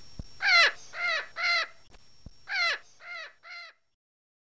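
Crow cawing: two runs of three short caws, each caw falling in pitch.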